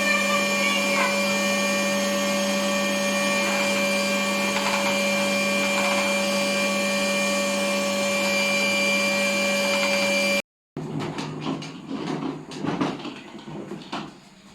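Vacuum cleaner running steadily with an even motor hum. It cuts off abruptly about ten seconds in, followed by a few seconds of scattered knocks and clatter.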